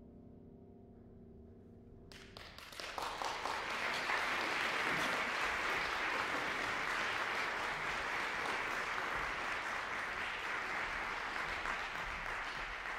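A grand piano's last held chord dies away, then audience applause breaks out about two seconds in, swells within a second and continues steadily.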